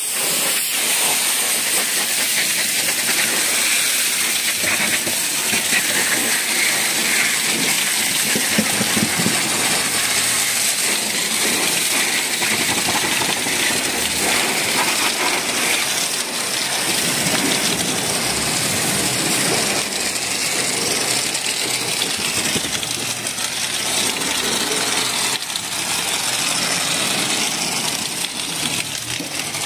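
High-pressure washer lance spraying a steady jet of water onto a foam-covered car's bodywork and wheel arch, a continuous hiss.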